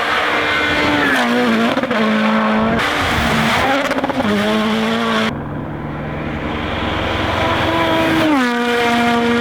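Rally car engine at high revs, its pitch dropping sharply several times as it lifts and shifts down. A rushing hiss runs through the middle of the stretch, and the sound changes abruptly about five seconds in.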